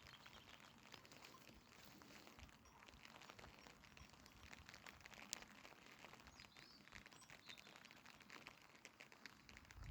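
Faint patter of rain, fine drops ticking, with a few faint bird chirps about halfway through.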